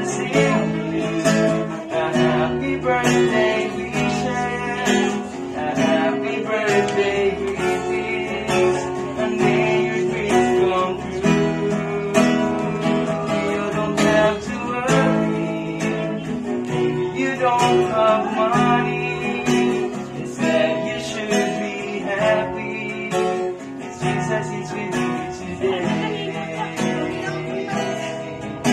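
Acoustic guitar strummed, playing a continuous tune.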